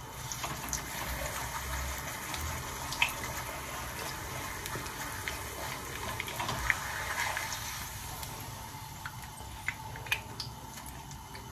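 Corn tortilla frying in a shallow layer of oil in a small nonstick pan, lightly on each side: a steady sizzle with scattered pops and clicks.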